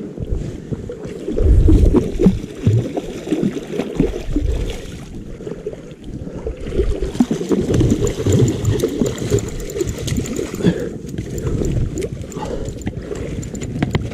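Rumbling wind and river-water noise on a GoPro's poor built-in microphone, with irregular low thumps. A brighter hiss joins about seven seconds in.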